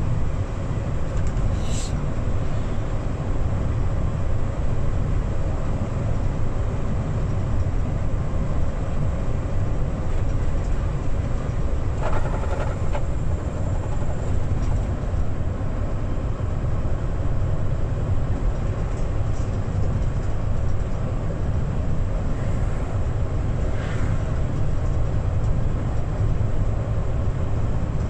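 Hino Profia truck's diesel engine and road noise as it drives: a steady low rumble, with a few brief higher-pitched sounds over it.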